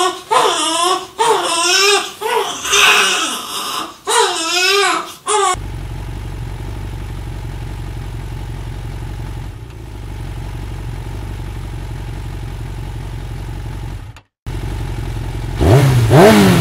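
A baby crying in loud, wavering wails for about five seconds, then a steady low engine rumble like an idling vehicle for most of the rest.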